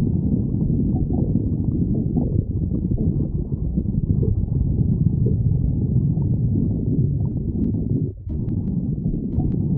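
A hungry stomach growling: a continuous low rumbling that breaks off briefly about eight seconds in and then resumes.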